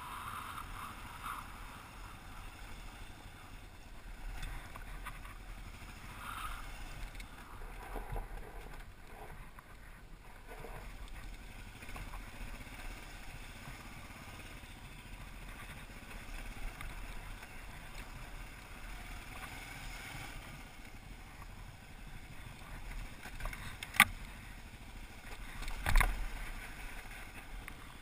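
Kawasaki KLR650 dual-sport motorcycle riding a rough gravel track, heard muffled with rushing noise on the helmet-mounted microphone. Near the end come two sharp knocks about two seconds apart, the second one the louder.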